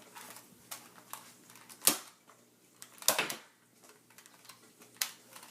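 Nerf dart blaster being fired: a few sharp plastic clacks, the loudest about two seconds in and others near three and five seconds in, with smaller clicks before them.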